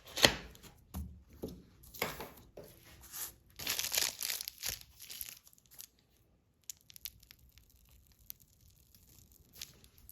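Paper or plastic packaging crinkling and rustling in a series of short bursts as it is handled, followed by a few faint light taps.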